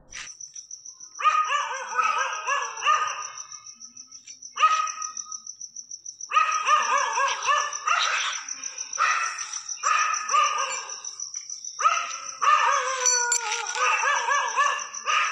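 Dogs barking rapidly in repeated bouts, with a falling whine among the barks near the end. A steady high-pitched trill runs under them.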